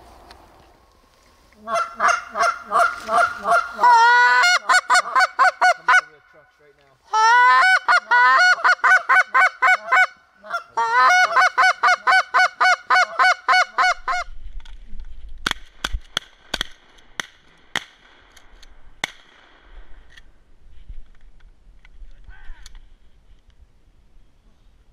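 Wooden Canada goose call blown in three fast runs of honks, several notes a second, calling to Canada geese. A few sharp clicks follow after the calling stops.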